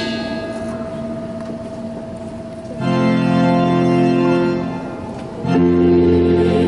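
Organ playing sustained chords as accompaniment for a choir: a soft held note, then a loud full chord about three seconds in, and another from about five and a half seconds in.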